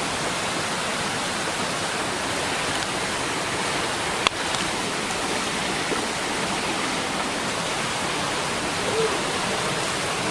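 Small waterfall cascading over rocks into a stream: a steady rush of water, with one sharp click about four seconds in.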